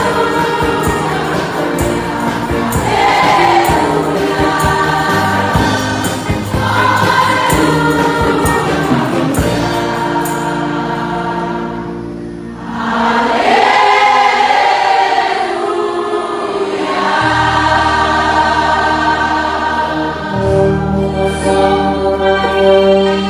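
A choir singing a gospel hymn over instrumental backing, in long held notes, with a brief drop about halfway through before the voices swell back in.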